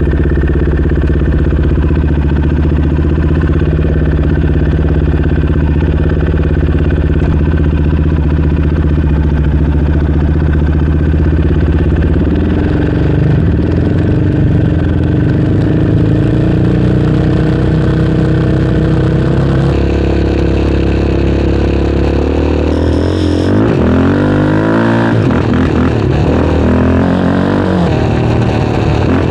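Yamaha Raptor 700R's single-cylinder four-stroke engine running under way, steady at first and picking up pace about twelve seconds in. Near the end it revs up and down several times.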